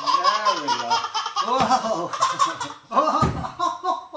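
A baby laughing hard in several breathless bursts of rapid, pulsing giggles.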